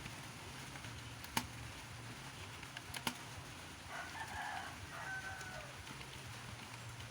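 A rooster crows once, about four seconds in, lasting over a second, over a steady low hum. Two sharp clicks come earlier, the first of them the loudest sound.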